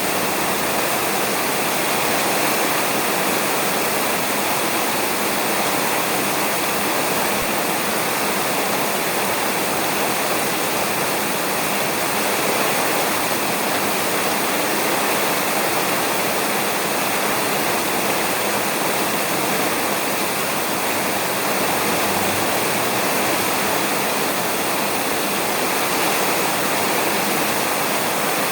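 Steady rain falling on a roof, an even, unbroken hiss with no thunder.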